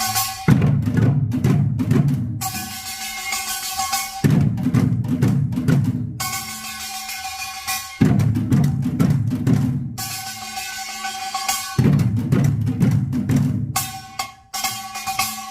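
Korean buk barrel drums played in a Yeongnam nongak rhythm: dense runs of drum strokes about two seconds long, alternating with stretches of ringing higher-pitched tones in a repeating cycle.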